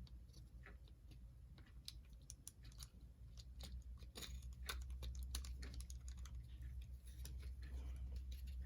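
Faint, irregular clicks and taps of small plastic model-locomotive parts being handled and pushed into place, as the headlight and shell are fitted back on, over a low steady hum.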